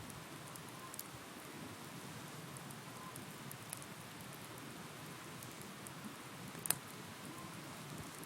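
Bonfire crackling, a steady soft rush of flames with scattered small pops and one sharper pop near the end.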